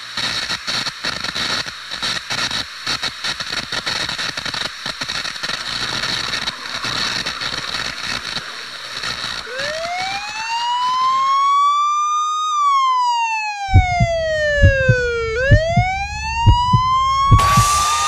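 Crackling static hiss for the first ten seconds or so, then a synthesized siren-like tone sweeping up and down in pitch, joined about fourteen seconds in by deep kick-drum hits of an electronic dance beat.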